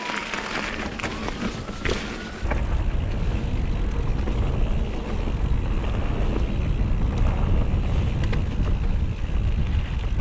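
Mountain bike being ridden on a dirt trail, recorded on a GoPro: tyre noise and scattered rattles and clicks from the bike. Low wind rumble on the microphone comes in suddenly about two and a half seconds in and continues.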